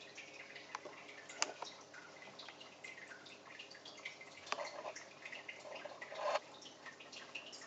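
A cat sneezing in short bursts, a little over four seconds and about six seconds in, amid faint scattered clicks and a sharp click about a second and a half in.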